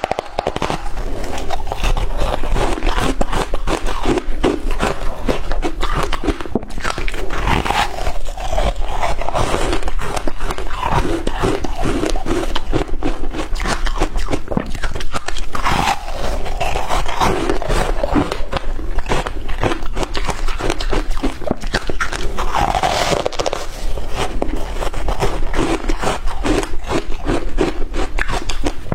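Close-miked crunching and chewing of shaved ice, a dense, continuous crackle of small cracks and crunches.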